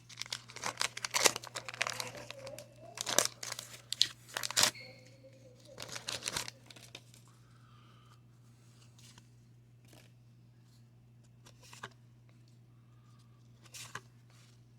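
Wax-paper wrapper of a 1990 Fleer baseball card pack being torn open and crinkled, in a dense run of tearing and rustling over the first seven seconds, followed by a few faint rustles as the cards are handled.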